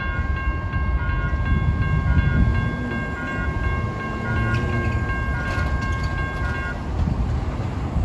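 Railroad grade-crossing warning bell ringing with a steady, pulsing beat while the crossing gates rise, stopping about seven seconds in. Cars driving over the crossing add a low rumble.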